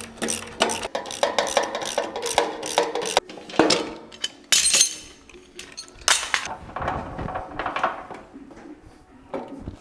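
Steel wrenches and parts clinking and clanking against a steel lathe stand and caster mount: a quick run of small metallic clicks at first, then a few louder clanks.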